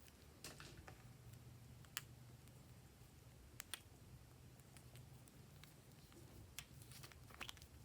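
Faint scattered clicks and small sticky pops of glossy slime being pressed and stretched by hand, about half a dozen over several seconds, over a low steady hum.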